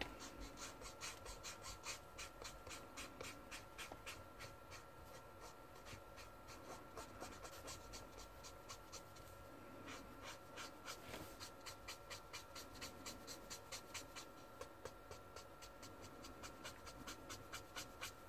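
Marker nib scratching over brown kraft paper in short, quick strokes, several a second, as shading is laid into a drawing. Faint throughout.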